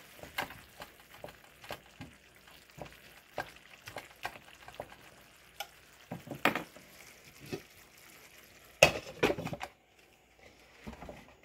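Sliced yellow squash frying in butter in a skillet, stirred with a spatula: short scrapes and taps of the spatula against the pan over a faint sizzle, with a few louder knocks about six and a half and nine seconds in.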